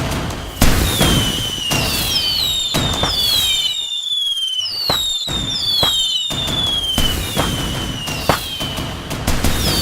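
Fireworks going off in a dense barrage: repeated bangs and crackles overlaid with many short whistles that slide down in pitch, with a brief lull in the bangs about four seconds in.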